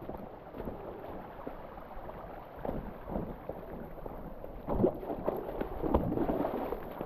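Shallow creek water running through a canyon at very low flow, with a few louder splashes in the last third.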